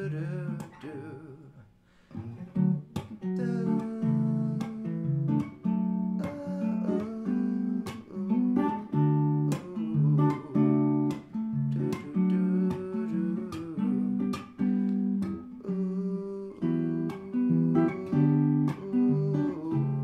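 Background music: a melody of plucked string notes, guitar-like, with a short pause about two seconds in.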